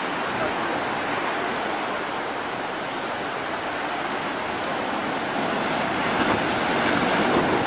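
Heavy ocean surf breaking and surging over coastal rocks, a steady roar of rushing water that grows louder near the end as a big wave comes in.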